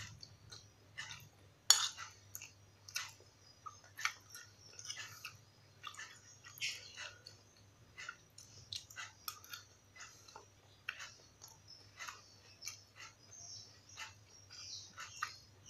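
Close-up eating sounds: chewing with scattered sharp clicks as a spoon scrapes and taps a glass bowl of rice and young-papaya stew, the loudest click about two seconds in. A faint steady low hum sits underneath.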